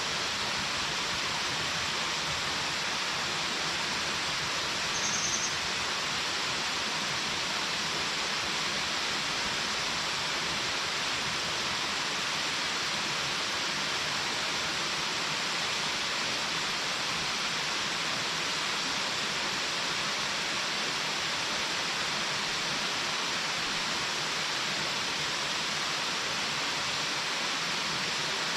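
Large waterfall pouring steadily, an even, unbroken rush of falling water. A brief high-pitched blip sounds once about five seconds in.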